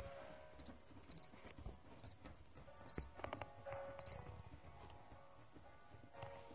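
Crickets chirping faintly in a plastic feeder bin: short high chirps about once a second, about five in all. A low steady tone comes and goes underneath, with a few light handling knocks around the middle.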